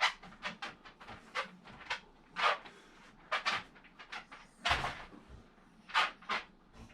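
Hands cutting and prying at tough plastic with a blade: irregular sharp clicks and scrapes, a dozen or so with pauses between, the loudest about two and a half, three and a half, four and three-quarter and six seconds in.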